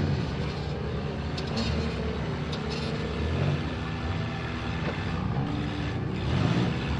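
Several front-wheel-drive demolition derby cars' engines running hard and revving up and down together, with a few sharp knocks from the cars ramming one another about one and a half to three seconds in.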